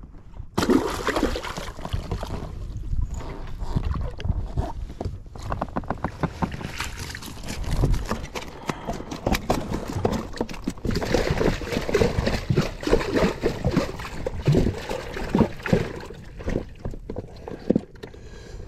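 Water splashing and sloshing as a trout is netted and thrashes in a rubber landing net at the surface. The splashes start suddenly and go on as a rapid, uneven series.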